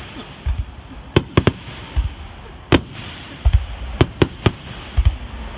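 Star mine fireworks barrage: deep booms and sharp cracks of shells bursting in quick irregular succession, a few per second.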